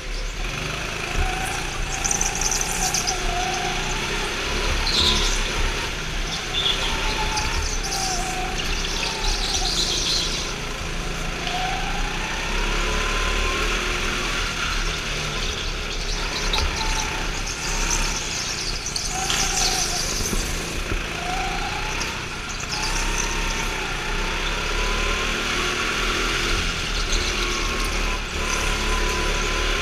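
Go-kart engine running under load, its pitch climbing and falling again and again as it is driven through the turns, with short high-pitched squeals now and then.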